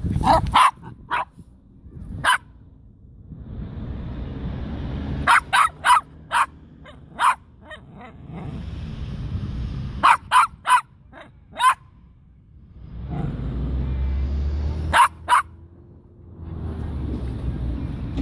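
Jack Russell terrier barking in short, sharp yaps, in four quick bursts of several barks each, a few seconds apart.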